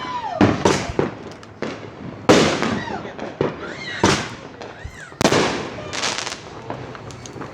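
Fireworks going off in quick succession: a string of sharp bangs about every half second to second, with short whistling tones that rise and fall between them.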